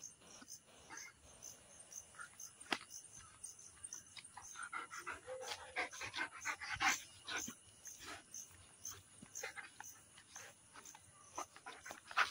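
A Dogo Argentino panting faintly while walking on a leash, mixed with irregular short scuffs and clicks that are busiest in the middle.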